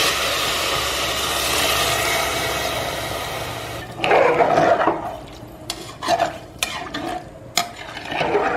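Water pouring steadily into a metal pressure cooker of rice for about four seconds, then a ladle stirring the rice and water, sloshing and clinking several times against the pot.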